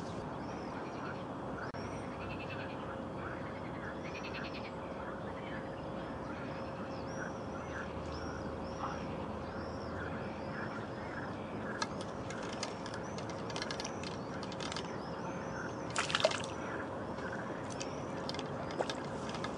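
Pond-side ambience: a steady hiss with a bird's repeated high chirping call, then from about twelve seconds in a run of sharp clicks and splashes at the water, loudest about sixteen seconds in, as a hooked fish struggles at the surface.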